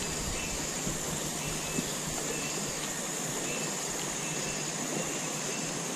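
Steady rush of a fast-flowing river running over shallow riffles, with a few faint short high chirps now and then.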